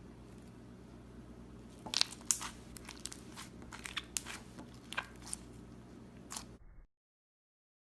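Slime being pressed and squeezed close to the microphone, giving a quick run of sharp crackles and clicks over a low hum. The sound cuts off abruptly near the end.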